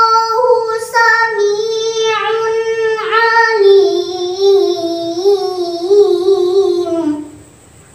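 A young girl's melodic Quran recitation (tilawah): one long ornamented phrase on a single held line, its pitch wavering in small turns and sinking lower toward the end, stopping about seven seconds in.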